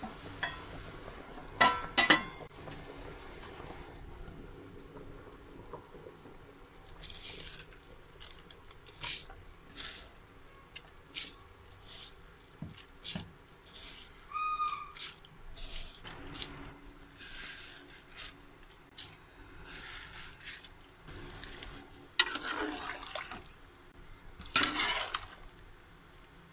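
Liquid bubbling and splashing in a metal cooking pot, with scattered clinks and scrapes of utensils against the pot. There are louder splashes as rice is tipped into the stock and stirred near the end.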